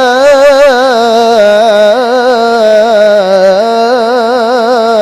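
A qori's solo voice drawing out a long melismatic line at the close of a prayer of blessings on the Prophet, with quick wavering ornaments and a step up in pitch about three and a half seconds in.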